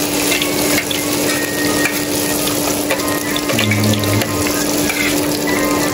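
Battered tempe fritters deep-frying in hot oil in a steel pan: a dense, steady crackling sizzle, with a steady low hum underneath.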